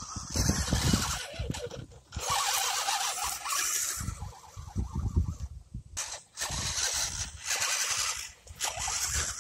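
Electric motor and gears of an Axial SCX10 II radio-controlled scale crawler whining as it drives over dirt and grass, over irregular low rumbling knocks. The sound drops out briefly about six seconds in and resumes.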